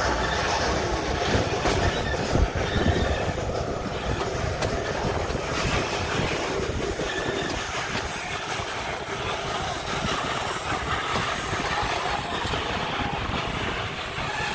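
Narrow-gauge steam train running along the track, a steady rumble of the carriages with scattered clicks of the wheels over the rails.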